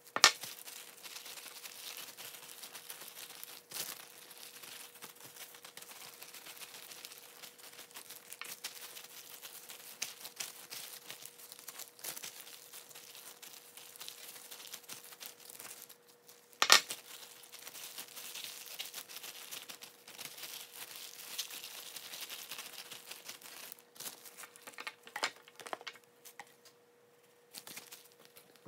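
Disposable plastic glove crinkling and rustling as gloved hands work raw chicken pieces, with two sharp knocks, one right at the start and one just past halfway.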